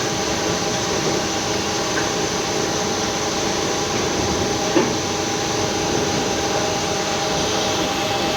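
Steady industrial hum and roar of an induction furnace at work, with several constant tones running through it and a couple of faint knocks, at about two seconds and near five seconds in.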